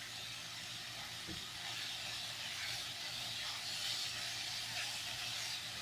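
Chicken, onion and spice stuffing frying in a non-stick wok, giving a steady, soft sizzle.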